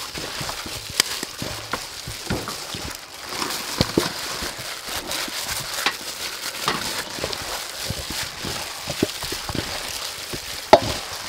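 Gloved hands mixing battered chicken legs in a large stainless-steel bowl: irregular wet squelches, plastic crinkling and clicks of meat against the bowl, with one sharper knock near the end.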